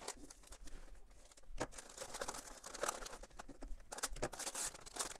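Kraft wrapping paper crinkling and rustling in irregular soft crackles as it is pulled off a box by hand.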